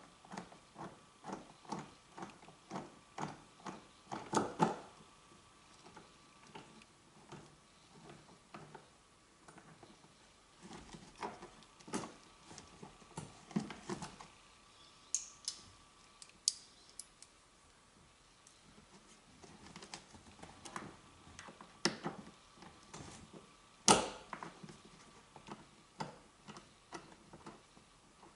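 Mounting bolts being turned in by hand and a plastic eyeglass holder being worked into a car headliner's grab-handle recess: light clicks, evenly spaced at about two a second for the first few seconds. After that come scattered plastic clicks and knocks, the sharpest about 24 seconds in.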